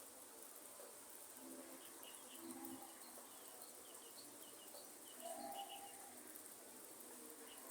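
Faint, steady hiss of light rain in a forest, with birds calling over it: a run of short high chirps, a few low cooing notes early on, and one longer mid-pitched call about five seconds in.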